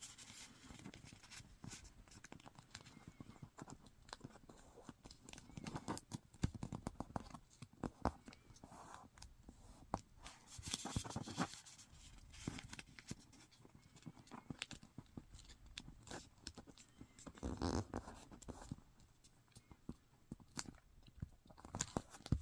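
Sheet of origami paper being folded and creased by hand: faint rustling and crinkling with scattered small taps and clicks as the edges are brought to the centre line and the creases pressed flat.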